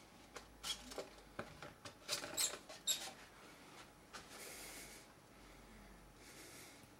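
Glass terrarium lid being slid open in its frame: a run of knocks and scrapes with a few short high squeaks, followed by a soft rustling hiss.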